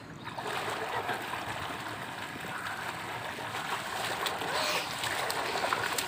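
Hands splashing and churning swimming-pool water: a continuous watery rush with many small splatters, starting about a third of a second in.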